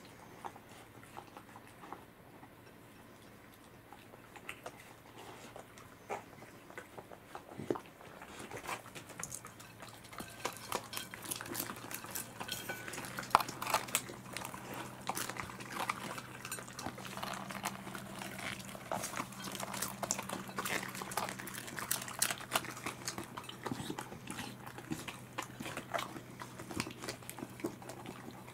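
Two corgis licking and chewing saury scraps from a plate, with many small clicks as tongues and teeth knock against the plate. Quiet at first; the eating sounds start about eight seconds in and carry on.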